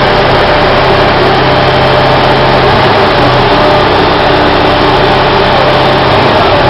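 Engine of a stationary trailer concrete pump running steadily, a loud, even mechanical drone with a low hum.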